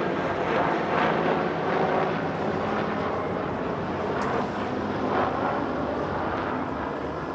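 Steady motor-traffic noise with a low engine hum, easing slightly near the end.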